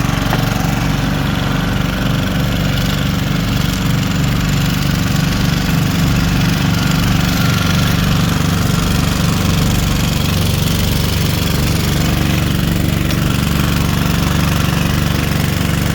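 Small gasoline engine of a gold-prospecting dredge running steadily at a constant speed.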